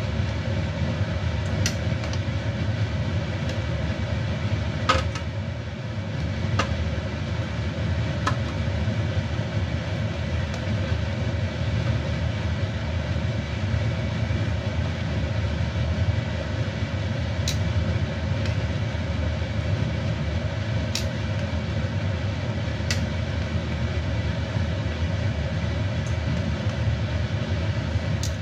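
Steady rumble of water at a rolling boil in a wok on a gas stove, with metal tongs clinking sharply against the wok several times as blanched pork ribs are lifted out.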